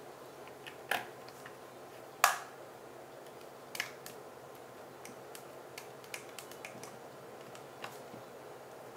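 Scattered clicks and taps of a small screwdriver and fingers on the body of a Vivitar V4000S 35mm SLR camera as its cover screws are driven back in. The sharpest click comes about two seconds in, with others about a second and four seconds in and lighter ticks after.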